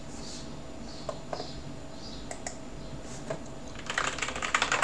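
Typing on a computer keyboard: a few scattered clicks, then a quick run of keystrokes near the end as a password is typed in.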